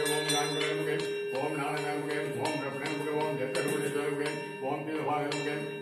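Devotional chanting over a steady drone, with a bell ringing now and then during the lamp offering (aarti).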